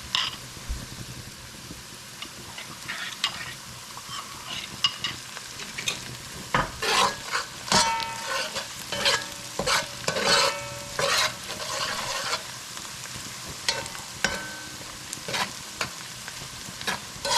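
A spoon stirring and scraping against a dish or pot over a steady sizzle of onions frying. The scrapes and clinks come thickest and loudest through the middle, a few with a short metallic ring.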